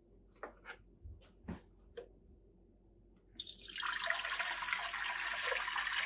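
A few light knocks, then about three seconds in water starts pouring from a plastic flask into a clear plastic tank, splashing steadily.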